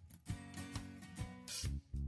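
Background music with a strummed guitar and a steady beat.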